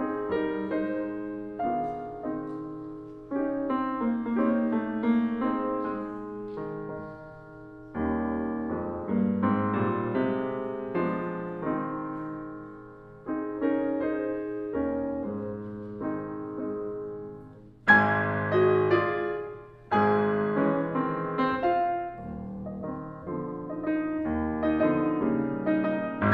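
Background piano music: a solo piano playing slow phrases of struck notes that ring out and fade.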